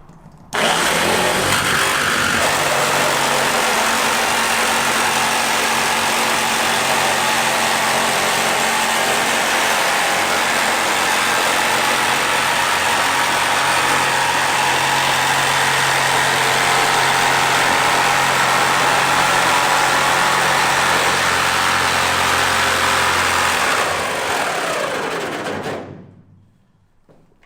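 A power cutting tool running steadily under load as it cuts along a marked line in the car's sheet-metal roof. About 24 seconds in it is released, and its motor winds down with a falling pitch.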